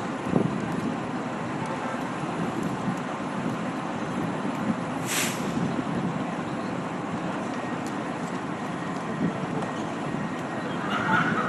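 Steady rumble of vehicles and street noise, with a short hiss about five seconds in.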